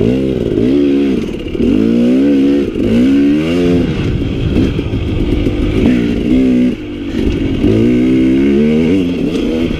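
KTM dirt bike engine running under a rider on a trail, its pitch rising and falling again and again as the throttle is opened and rolled off, with a brief dip about seven seconds in.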